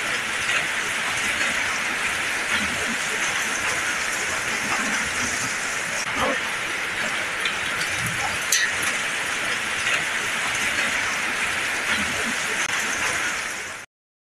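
Heavy rain and hail pouring down in a dense, steady hiss, with occasional sharper hits. It cuts off suddenly near the end.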